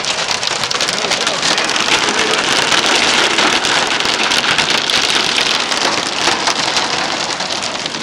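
Hail and heavy rain pelting a car's roof and windshield, heard from inside the cabin: a dense, steady clatter of countless small hits.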